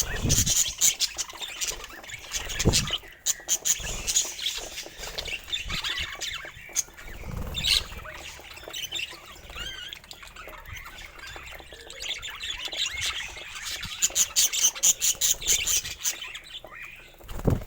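Budgerigars chirping and chattering in rapid, warbling squawks, busiest near the start and again toward the end, with a few dull low thumps.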